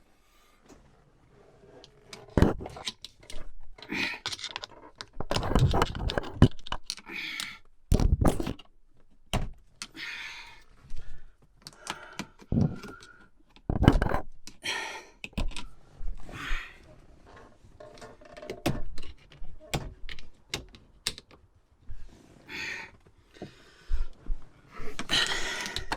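Irregular knocks, clunks, clicks and rattles of hands and tools working metal parts at a VW T4's steering column, in short clusters with quieter gaps between.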